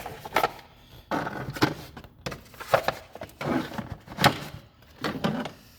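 Tools being handled in a toolbox drawer: a series of sharp knocks and clatters, about one a second.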